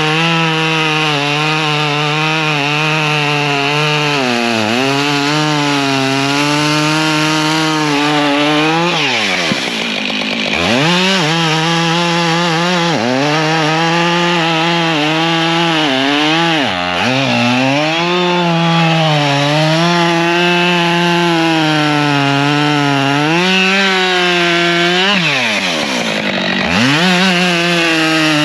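Two-stroke chainsaw running at high revs, cutting through wood. Its pitch drops briefly and climbs back several times.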